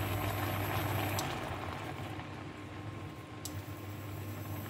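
Chicken adobo sauce simmering in a nonstick wok: a steady hiss, with a low hum that stops about a second in.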